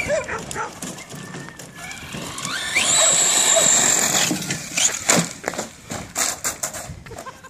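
1/8-scale brushless electric RC truggy (DHK Zombie 8E) accelerating: the motor's whine rises in pitch and then holds high and steady for about a second and a half. Several sharp knocks follow.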